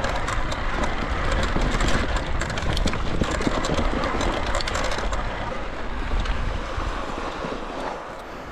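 Wind rushing over the microphone, with tyre noise and quick, irregular rattling clicks from an electric mountain bike riding a rough trail. It eases off a little near the end.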